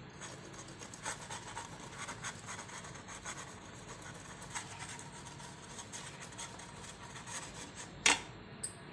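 Hard-boiled egg grated on a hand grater: repeated soft rasping strokes. A sharper knock about eight seconds in is the loudest moment.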